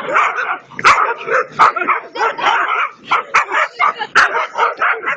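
Dogs barking and yelping, many short barks in quick succession.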